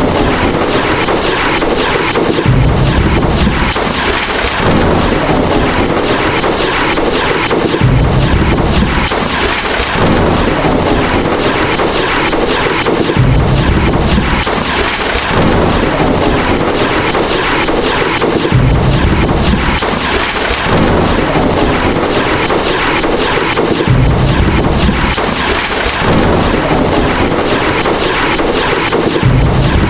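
Thunderstorm sound effect: thunder with a low rumble that starts afresh about every five seconds, over a steady dense crackle and hiss.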